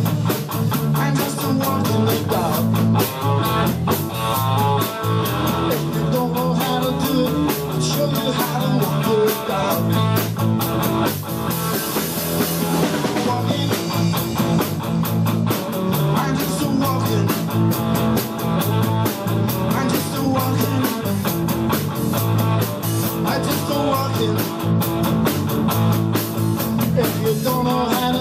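Live band playing rock and roll: electric guitar over electric bass and a drum kit.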